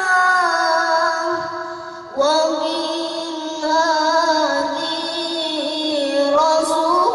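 A boy's voice reciting the Quran in the melodic tilawah style through a microphone and loudspeakers, holding long, ornamented notes. The phrase fades and breaks for a breath about two seconds in, then a new phrase starts louder.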